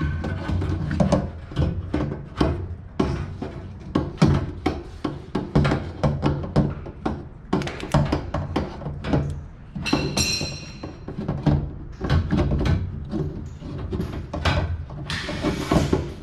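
Music with a heavy, steady beat and strong bass.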